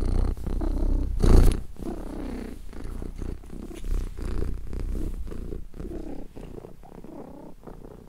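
Domestic cat purring steadily while being stroked, with a louder swell about a second and a half in.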